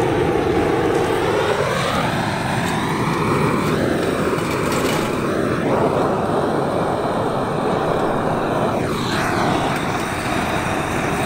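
Butane gas torch running at full flame, a loud steady roar with a whooshing tone that sweeps up and down, as it blasts into the base of a metal charcoal chimney starter to light the charcoal.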